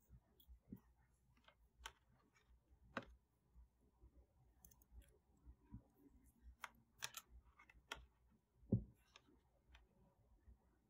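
Faint, scattered clicks and taps of fingers handling a small XH-W1209 thermostat circuit board and its temperature probe cable, with a louder soft thump a little before the end.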